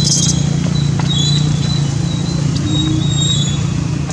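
A steady low engine hum runs throughout, with faint thin high-pitched squeaks from an infant long-tailed macaque a few times over it.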